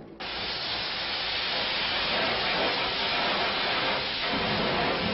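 A loud, steady hiss of a pressurised jet, beginning abruptly just after the start.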